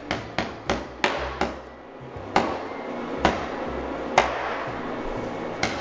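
A cardboard tube of refrigerated croissant dough being whacked to burst it open: a run of sharp knocks, quick at first, then about one a second.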